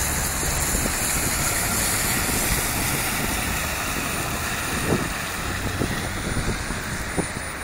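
A PAZ minibus's engine running as it drives along a wet street, a steady rumbling noise that fades a little as the bus pulls away.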